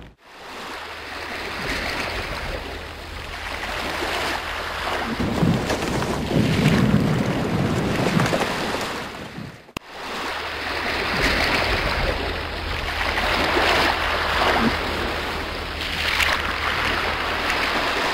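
Sea waves washing in and out with wind, swelling and ebbing every few seconds. The sound cuts out briefly about ten seconds in, then carries on.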